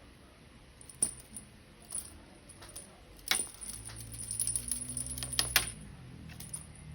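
A cat's toy jingling and clicking as it is batted about. It gives a few separate clicks at first, then a busier run of jingles from about halfway in.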